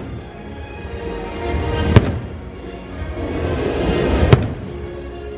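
Aerial firework shells bursting with two sharp bangs, about two seconds in and again about four seconds in, over the fireworks show's music soundtrack playing on loudspeakers.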